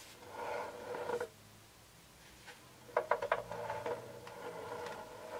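Quadcopter's aftermarket landing skids scraping on a wooden tabletop as the drone is turned by hand, twice, with a squeaky, tonal rub. A few light knocks start the second turn.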